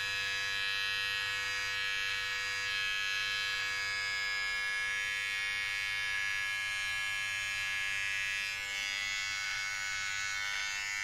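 Aprilla AHC 5033 rechargeable hair and beard trimmer running with a steady buzz, not very loud, as its blade trims moustache stubble.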